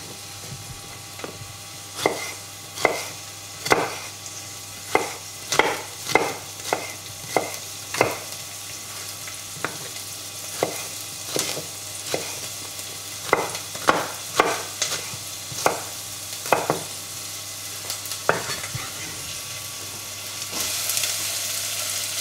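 Kitchen knife chopping a shallot on a bamboo cutting board: sharp knocks, irregular, about one or two a second, over the steady sizzle of shallot frying in olive oil in a saucepan. Near the end the knocks stop and the sizzle grows louder as the chopped shallot goes into the hot pan.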